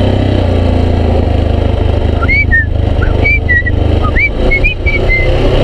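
Yamaha XTZ 250 Lander's single-cylinder engine running steadily under way on a dirt road. About halfway through, a quick run of short, high whistle-like notes sounds over it for a few seconds.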